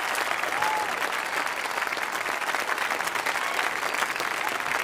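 Large audience applauding: dense, steady clapping, with a voice calling out briefly about half a second in.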